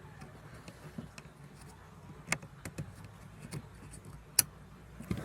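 Scattered sharp clicks and light knocks of parts being handled inside a car, a handful over a few seconds, the loudest about four seconds in, over a low steady hum.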